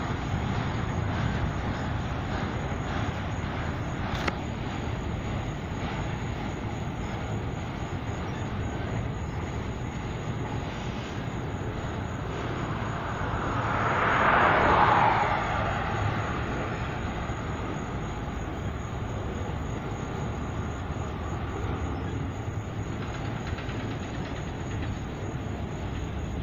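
Autorack freight cars rolling past on the rails, a steady rumble of wheels and cars. There is a brief click about four seconds in, and the noise swells louder for a few seconds about halfway through.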